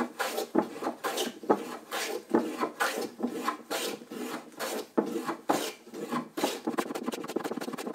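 Hand plane set for an aggressive cut, shaving down a thick glued-in hardwood patch to bring it flush with the surface. Repeated rasping push strokes come at about two a second, turning into quicker, shorter strokes near the end.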